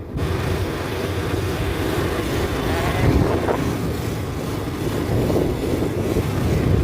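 Wind rushing over the microphone with a vehicle running underneath, as heard while riding. The noise rises sharply as it begins and stays steady after that.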